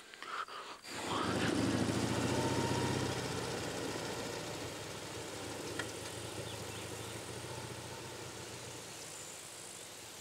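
Motorcycle with sidecar running and pulling away. Its engine comes in about a second in and then fades slowly as it goes off into the distance.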